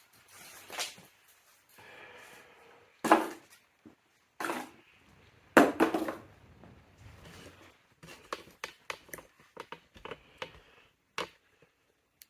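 Three loud knocks and clanks, then a run of light, irregular clicks and taps.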